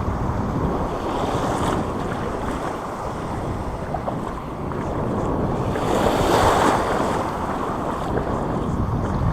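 Sea waves washing on the shore with wind buffeting the microphone, one wave swelling louder about six seconds in.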